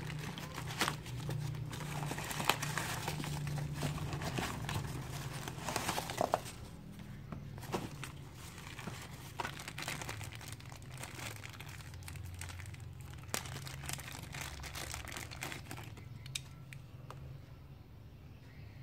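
Cardboard box and packing torn open and crumpled by hand, then clear plastic wrapping crinkling as a small diecast car is unwrapped. Dense crackling and tearing for the first six or seven seconds, then sparser rustles and clicks that fade toward the end, over a steady low hum.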